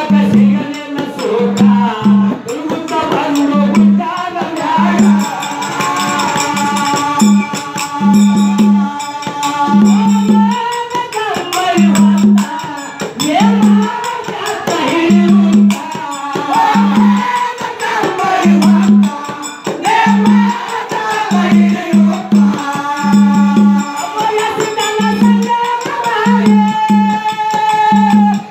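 Men singing a folk devotional song, with a drum struck about once a second and jingling rattle-like percussion throughout.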